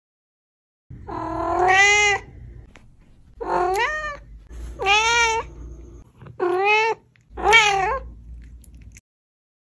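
Five long, drawn-out meows, one after another, each rising and falling in pitch.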